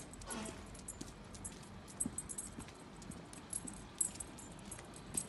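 Metal clips and tags on a walking dog's harness and collar jingling and clinking in short bursts, over soft, regular footsteps on paving stones.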